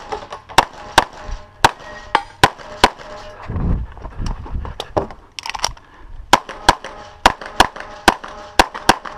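Rapid 9mm pistol shots from a CZ 75 SP-01, often in pairs about a third of a second apart. A quick string of shots, a pause of about two seconds, then another string of about ten shots.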